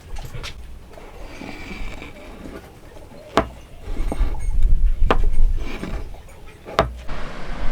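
Three sharp knocks on wood, about a second and a half apart, typical of mallet blows while hand-cutting or fitting a joint, with low thumping between them.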